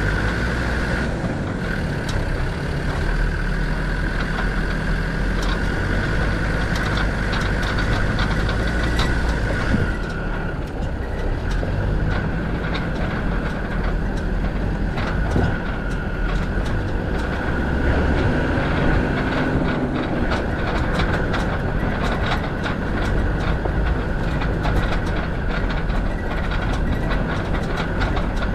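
Land Rover Defender 90 TD5's five-cylinder turbodiesel engine running at low speed over a rocky dirt track, with a steady high whine and frequent irregular clicks and rattles as stones and the body jolt over the rough ground.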